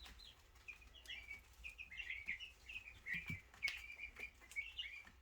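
Young meat-bird chickens peeping: a steady stream of short, high chirps, several a second and often overlapping.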